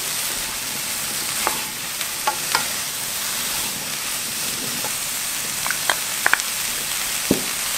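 Blanched sweet potato stems sizzling in sesame oil in a pan as two wooden spoons toss them, with scattered clicks of the spoons against the pan. The steady sizzle is the stems' water being cooked off.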